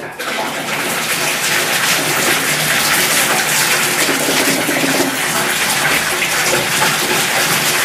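Bath tap running into an empty bathtub, water splashing on the tub bottom as it starts to fill. It comes on suddenly, then runs steadily.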